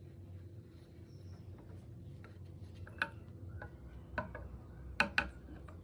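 Scattered light clicks and taps over a low steady hum, with four sharper, louder clicks in the second half.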